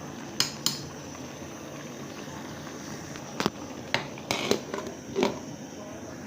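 Kitchen sounds: utensils and dishes clinking, about seven sharp clinks with a pair near the start and a cluster in the second half, over a steady hiss.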